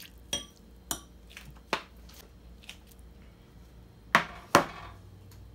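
A metal spoon clinking against a glass mixing bowl while stirring a thick seasoning paste: about five sharp clinks with a short ring, the two loudest close together about four seconds in.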